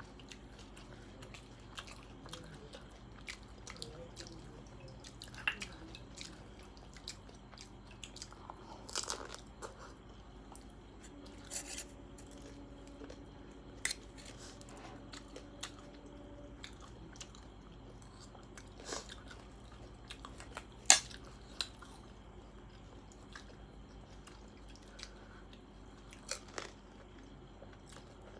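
Close-up chewing and crunching of a crunchy snack mixture of peas, chickpeas and papad, with scattered crisp clicks throughout and one sharper crunch about three quarters of the way through.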